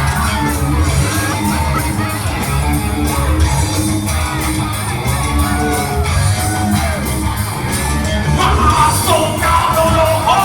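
Live rock band playing: a male lead vocal over electric guitar, bass guitar and a steady drum beat. The singing gets louder and higher about eight seconds in.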